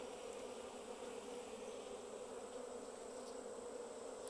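Colony of Japanese honeybees buzzing on the exposed frames of an open hive box: a faint, steady hum.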